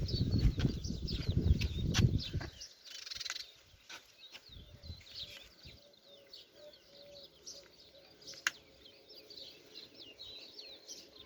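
Many small birds chirping in quick, high calls that go on without a break. A loud low rumbling noise fills the first two and a half seconds and stops suddenly, and a single sharp click comes about eight and a half seconds in.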